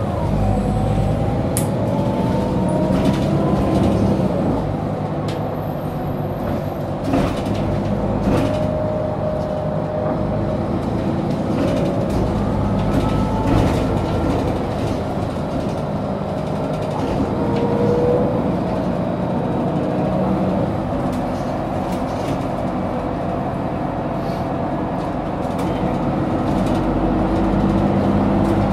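Ride inside a 2008 Mercedes-Benz Citaro G (O530G facelift) articulated diesel bus: the engine and drivetrain run steadily, with a whine that rises and falls as the bus speeds up and slows, and occasional rattles from the body.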